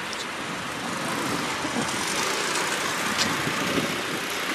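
Road traffic: a steady hiss of car tyres on the wet street.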